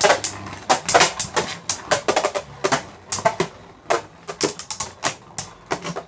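Two Beyblade Burst spinning tops battling in a plastic stadium: rapid, irregular sharp clacks as the tops strike each other, about three or four a second.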